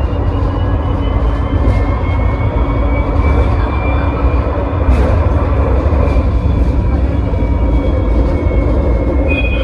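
Tram running along its track: a steady rumble of wheels on rails, with the whine of the traction motors rising slowly in pitch as it picks up speed.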